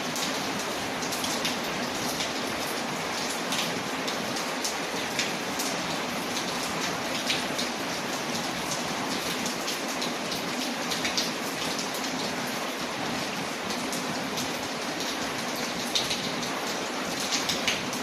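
Steady rain falling, mixed with the scattered sharp crackles and pops of a wood fire burning in a fireplace, irregular throughout.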